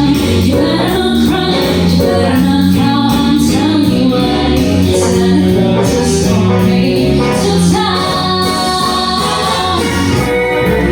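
Christmas show music performed on stage: singers with band accompaniment, a woman's voice prominent.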